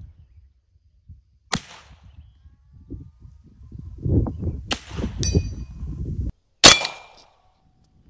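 Three shots from a BinTac (AEA) S45 semi-auto .45-calibre big-bore air rifle, each a sharp crack: about a second and a half in, near the middle, and about two thirds through, the last the loudest. A low rumble runs for a few seconds before the last shot.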